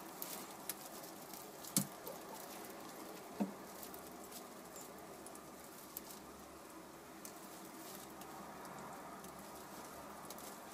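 Hens shifting about in a straw-filled wooden nest box: faint rustling and light scratchy clicks, with two sharper knocks at about two seconds and three and a half seconds in.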